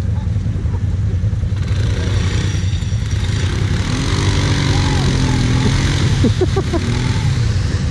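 Quad (ATV) engines: a steady low idle underneath while a quad stuck in the mud pit revs, its engine pitch rising and falling from about two seconds in.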